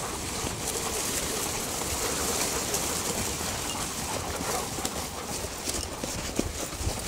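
A pack of foxhounds running through grass, giving occasional cries, with a horse's hoofbeats among them. Steady rustling and rumbling noise runs under it, with one sharp knock about six seconds in.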